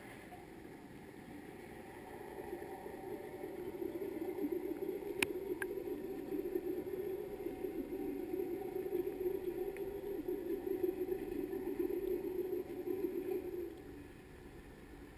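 Boat machinery heard underwater through a camera housing: a muffled, churning low hum that builds about two seconds in, holds, and cuts off suddenly near the end. Two sharp clicks about five seconds in.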